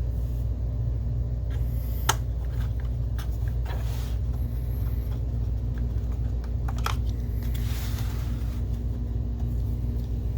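Scattered light clicks and taps from handling small parts and screws on an opened projector, over a steady low background hum; the clearest clicks come about two and seven seconds in, with a soft brushing sound around eight seconds.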